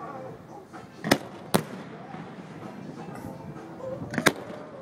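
Fireworks bursting: three sharp bangs, the first about a second in, the second half a second later, and the third near the end.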